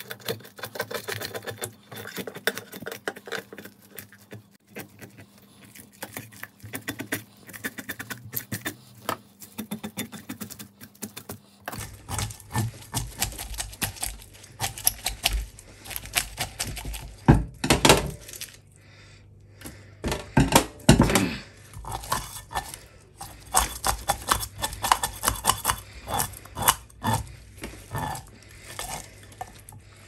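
A small stainless-steel bowl's rim scraping the scales off a whole hilsa fish in rapid, irregular short strokes, a dense scratchy clicking, with a few harder strokes in the second half.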